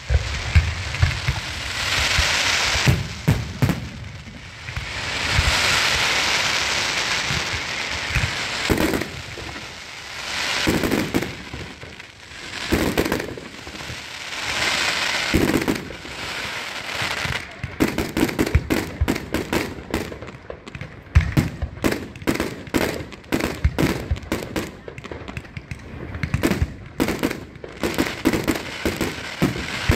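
Fireworks going off: hissing spells with scattered bangs in the first half, then from about two-thirds of the way through a dense, rapid run of sharp cracks and pops like a firecracker string or a crackling battery.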